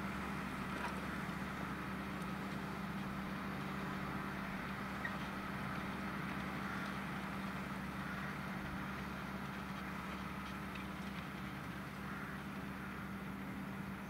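Valtra T174 tractor's six-cylinder diesel engine running steadily under load, at a constant pitch, while pulling a five-furrow reversible plough through the soil.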